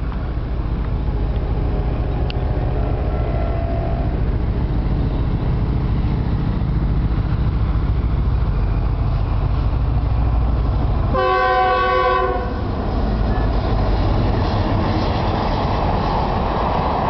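Dongfeng DF4D diesel-electric locomotive approaching with a steady low rumble, sounding its horn once for about a second roughly two-thirds of the way through. After the horn, the passenger coaches roll past with a rising hiss of wheels on the rails.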